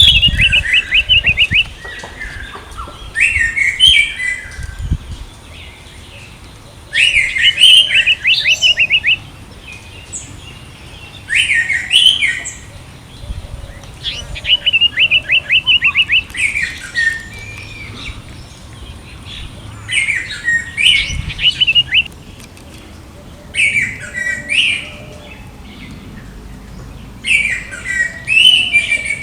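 Orange-headed thrush singing: a varied phrase every few seconds with short pauses between, several of the phrases fast runs of repeated notes.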